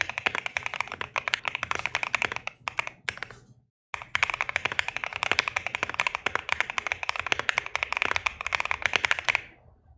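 Fast typing on a Bakeneko60 custom mechanical keyboard with a POM plate and lubed linear switches: a dense stream of keystroke clacks. The typing dies away about three and a half seconds in, stops briefly, starts again and fades out near the end.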